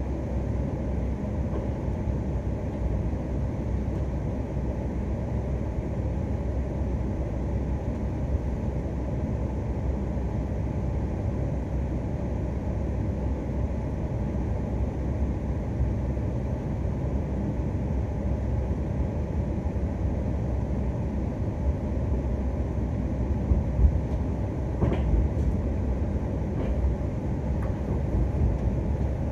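Inside a Shinkansen passenger car as the train pulls away and gathers speed: a steady low rumble of the running gear. A few brief sharp clicks come near the end.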